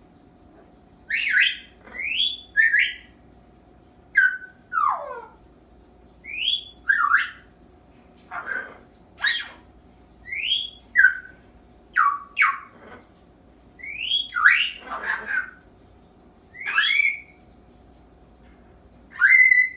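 Young African grey parrot whistling and squeaking: a string of short, sharp calls, most of them quick upward whistles, with one longer whistle sliding down in pitch about five seconds in, separated by irregular pauses of a second or two.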